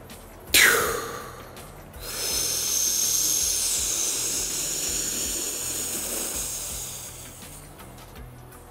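A long, deep inhalation lasting about five seconds, a hiss with a high whistle that dips in pitch partway: a full yogic breath drawn into belly, midsection and chest in turn. About half a second in, a short sharp rush of air that quickly fades comes first.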